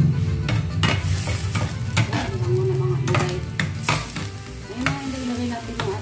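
Ground pork frying and sizzling in a pan while a spatula stirs it, scraping and knocking against the pan again and again.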